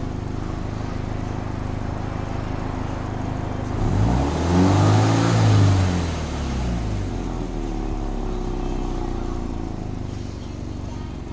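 Subaru Impreza WRX STI's turbocharged EJ20 flat-four idling through its quad-tip exhaust, then revved once about four seconds in, the pitch climbing and falling back to a steady idle within about three seconds.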